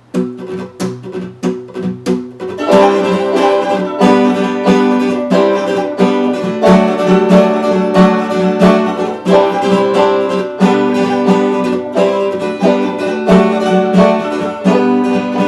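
Plucked acoustic string instrument playing the instrumental intro of a song: a few separate notes at first, then from about three seconds in a steady, busy run of picked notes.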